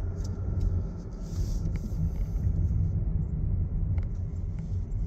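Car cabin rumble while driving: the engine and tyres make a steady low drone, heard from inside the car.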